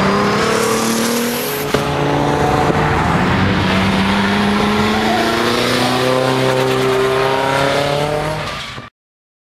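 Drift car engine held at high revs while sliding, its pitch climbing slowly, over a hiss of tyre noise, with a short click about two seconds in. It cuts off suddenly near the end.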